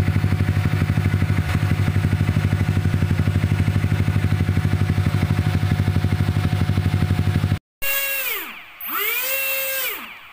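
Sym VF3i scooter's single-cylinder engine idling with a steady, fast, even beat. After a sudden cut near the end, a small electric motor whines up and then back down twice: a toy RC jet's motor being throttled.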